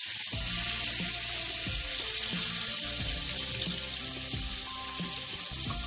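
Herrings and sliced onions frying in hot oil, a steady sizzle. Soft background music with a regular beat runs underneath.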